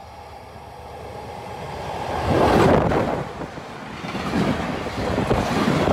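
Electric freight train passing at speed: an FS E652 locomotive comes on, growing louder, and rushes by about two and a half seconds in. A train of intermodal pocket wagons carrying lorry trailers follows, rumbling and rattling over the rails.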